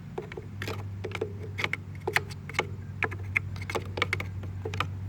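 Irregular light clicks and clinks of tools and small parts being handled while a lawn mower's air-intake and carburetor housing is taken apart, over a steady low hum.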